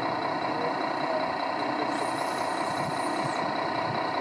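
Steady engine sound from radio-controlled model trucks' sound modules, with a high electric whine for about a second and a half in the middle.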